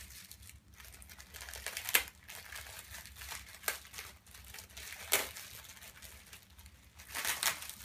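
Plastic bubble-wrap packaging crinkling and rustling as a parcel is unwrapped by hand. Sharp crackles come about 2 s and 5 s in, and a busier run of crinkling near the end.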